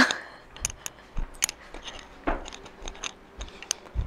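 Footsteps on an indoor floor, with soft thumps about once a second, mixed with scattered light clicks and ticks.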